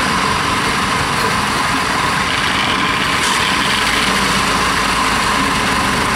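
Diesel engine of a small tracked rice hauler running steadily.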